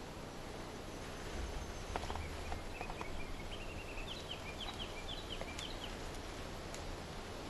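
A small songbird singing a short run of chirps, ending in a quick series of falling high notes, over a steady outdoor background hiss. A few faint clicks come just before the song.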